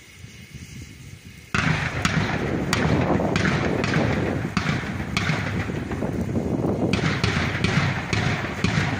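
Electronic music with a heavy, regular drum beat cuts in abruptly about a second and a half in, the beats coming faster near the end; before it there is only faint background sound.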